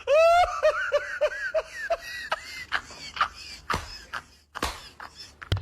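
A high-pitched voice laughing in a quick run of short bursts that fade out over about two seconds, followed by a few scattered clicks.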